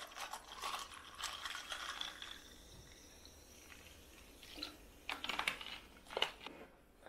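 Dark fizzy soda poured over ice cubes into a tall glass: splashing and crackling of the pour over the ice, with a fizzing hiss as the foam rises. It is busiest in the first two seconds and again about five to six and a half seconds in.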